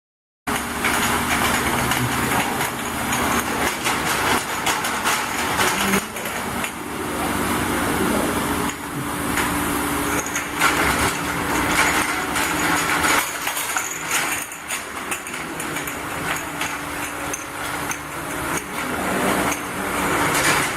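Automatic glass bottle washing machine running, with a steady machine hum under a constant clatter of clinks and knocks.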